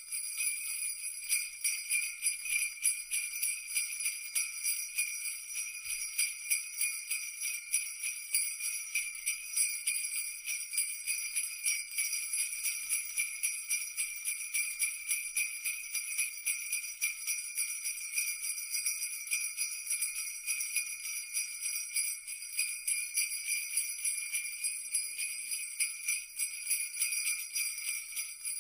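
Sleigh bells (jingle bells) shaken steadily in a quick, even rhythm, a bright continuous jingling.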